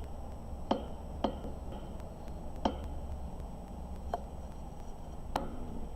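Five light, sharp clicks and taps, spaced irregularly, from HO scale model railcars being handled and set against a hard surface, over a low steady hum.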